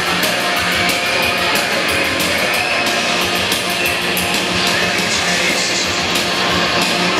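Rock music with electric guitar and a steady drumbeat, played loud through the arena's public-address system.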